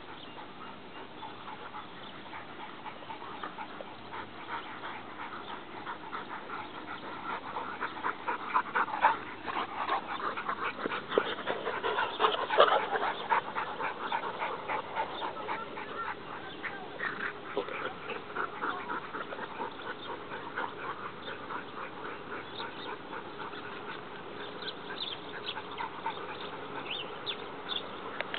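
Several dogs playing, with dog vocal sounds over a dense run of quick rustles and clicks that grows busiest and loudest partway through.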